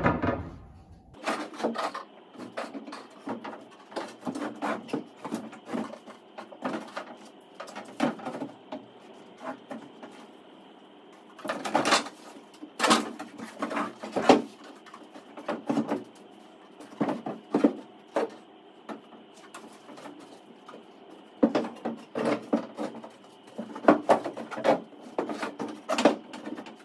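Irregular knocks, taps and scrapes of a thin plywood bulkhead template being handled and pushed against the fibreglass hull and chain plate knees, in clusters about twelve seconds in and near the end. A faint steady high hum sits underneath.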